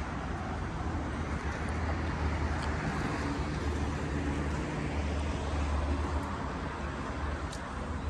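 City road traffic: a steady rumble of passing cars, swelling about a third of the way in and easing near the end.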